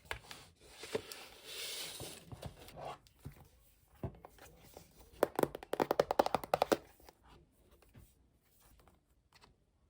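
Cardboard packaging of an Apple Watch box being opened by hand: a stretch of rustling and tearing, then a quick run of taps and clicks from about five to seven seconds in, trailing off to faint handling noises.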